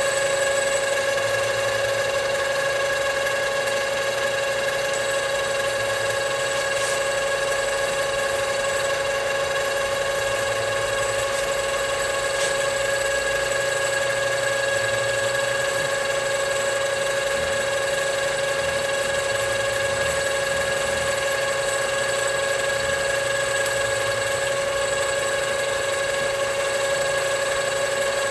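A machine running steadily with a constant, unwavering whine, the same pitch throughout.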